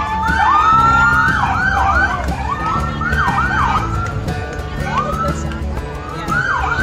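Several vehicle sirens whooping in quick, overlapping rising-and-falling sweeps, with one held longer near the end, over a steady low engine-like hum.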